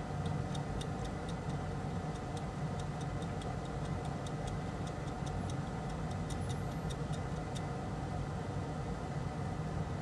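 Steady mechanical hum of bench equipment, with a run of light, sharp ticks, about two to four a second, that stops about three quarters of the way through.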